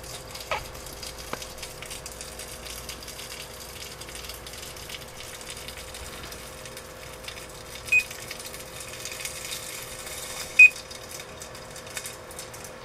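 Audio of an electric motor burning out on mains power, played through small laptop speakers: a steady hum with hissing and a couple of faint clicks near the start. Two short high beeps from the laptop about eight and ten and a half seconds in, the second louder, as its volume is adjusted.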